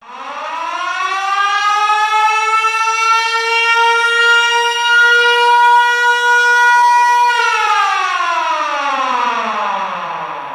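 Military alarm siren sounding one wail: it winds up in pitch over about two seconds, holds a steady tone, then winds down through the last three seconds.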